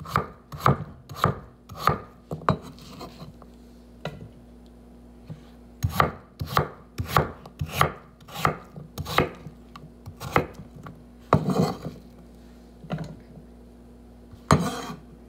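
Kitchen knife chopping a raw potato on a wooden cutting board: sharp strikes at a steady pace of about two a second, in two runs with a short lull between them. Two louder knocks come later, near the end.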